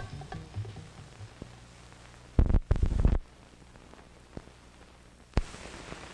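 Gap between two old film commercials: the last notes of a music cue die out in the first second, then the soundtrack's hiss and hum, broken by a loud low thump-like burst about two and a half seconds in and a sharp click about five and a half seconds in, the kind of pops a film splice makes on an optical soundtrack.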